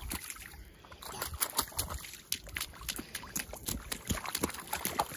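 Children's rubber rain boots stomping and splashing in a shallow muddy puddle, an irregular string of splashes and sloshes one after another.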